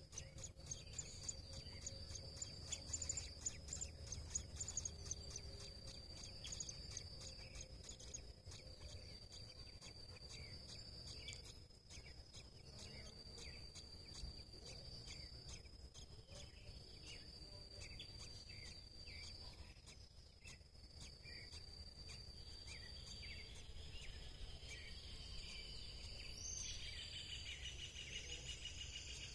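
Faint outdoor ambience: a steady high insect trill that breaks off briefly now and then, with many short high bird chirps over the first several seconds and a bird call near the end, over a low steady rumble.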